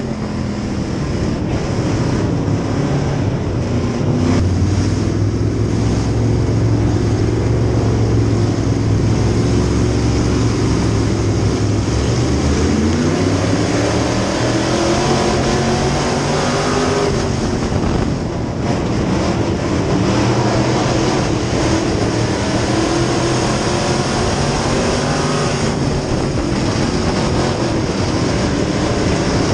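Dirt-track Sport Mod race car's V8 engine, heard from on board at race pace. It runs loud and continuously, its pitch falling and rising as the driver lifts and gets back on the throttle, with a long climb about halfway through.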